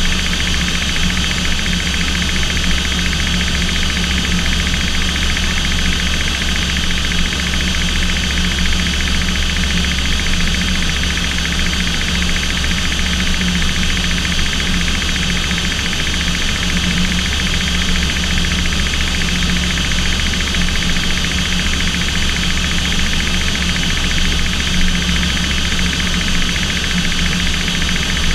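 Aircraft engines and propellers droning steadily, heard from inside the cockpit: a constant low hum under a wide hiss, with no change in pitch.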